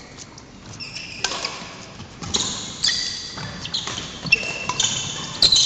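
A badminton rally on a wooden court. Sharp racket hits on the shuttlecock come a few times, and from about two seconds in, shoes squeak repeatedly on the floor.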